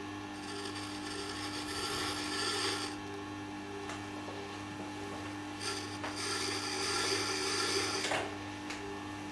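Tormek sharpening machine running with a steady hum while a serrated knife edge is honed on its spinning felt wheel: two rubbing, hissing strokes of about two and a half seconds each, one near the start and one in the second half.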